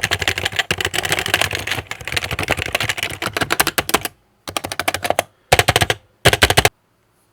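Typing on a Happy Hacking Keyboard's Topre switches fitted with new dye-sublimated keycaps: a fast, steady run of keystrokes for about four seconds, then three short bursts of keystrokes, and the typing stops near the end.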